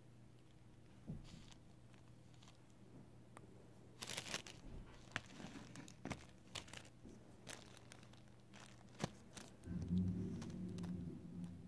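Scattered small clicks and crinkles from handling a silicone nail stamper against the fingernails. A low steady hum sets in near the end.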